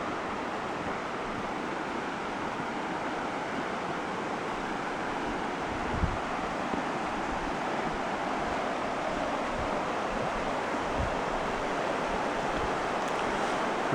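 Steady rush of river water flowing over rocks, with a few soft low thumps, the loudest about six seconds in.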